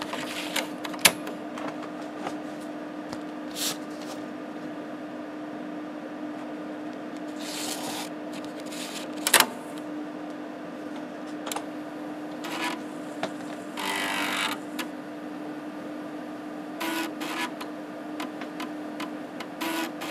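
Floppy disks being loaded into an Epson SD-800 dual 3.5"/5.25" floppy drive: sharp clicks and clunks as a 3.5" disk is pushed in and snaps into place and the 5.25" door latch is turned shut, with short sliding and rubbing noises, over a steady computer hum. Near the end the drive starts working with short, rapid, uneven clicking bursts.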